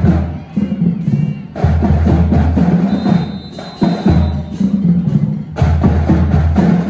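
Trombone section playing loud held low chords that change every couple of seconds, with a short break about a second in. Percussion clicks tick along under them.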